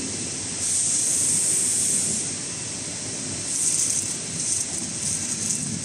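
Rustling and sliding of fabric and packaging as a new sock is fitted over the roller tube of a rotary sock printer, in two stretches, one near the start and a longer one past the middle, over the steady background noise of a busy exhibition hall.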